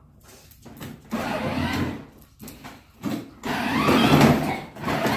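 Electric ride-on toy jeep's motor and gearbox whirring in stop-start bursts as the child drives it forward, loudest in the second half.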